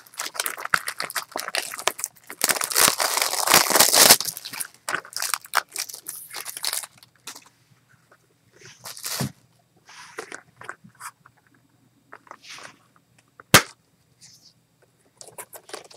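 Plastic shrink wrap on a Blu-ray case crinkling and tearing as it is peeled off, dense for the first several seconds, then thinning to scattered rustles. About three quarters of the way in, a single sharp snap as the plastic Blu-ray case clicks open.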